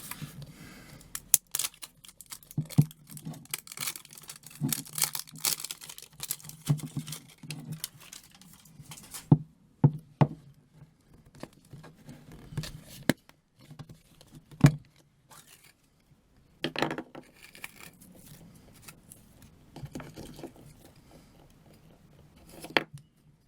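Noise putty being squeezed and worked, giving irregular squelches and low fart-like noises, with a few sharp clicks in between.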